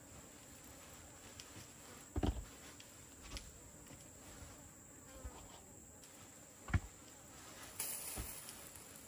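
Insects droning in a steady high-pitched tone, broken by a few dull knocks, the loudest about two seconds in and near the seventh second.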